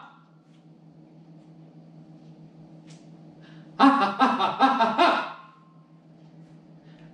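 A man's voice making four short, pitched wordless syllables of a vocal warm-up, starting a little after halfway through. Before them is a few seconds' pause with only a faint, steady low hum.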